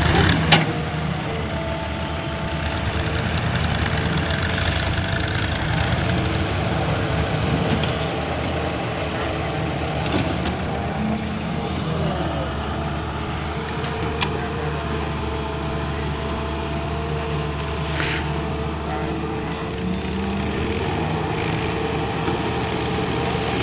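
Volvo EW130 wheeled excavator's diesel engine running steadily as it digs soil and swings a loaded bucket to a trolley. A couple of sharp knocks stand out, one just after the start and one later on.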